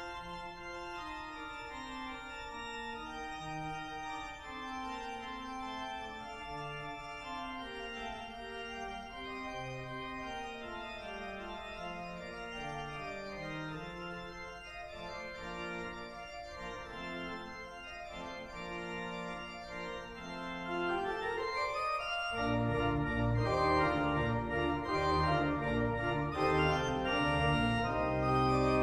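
Large church pipe organ playing a quiet melodic passage. A little past twenty seconds in, a rising run leads into a louder, fuller passage with deep bass notes added.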